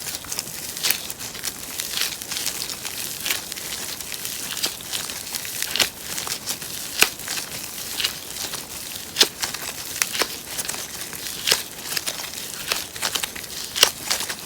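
Slime being squeezed and worked by hand: a steady sticky crackling with many sharp clicks and pops, several a second.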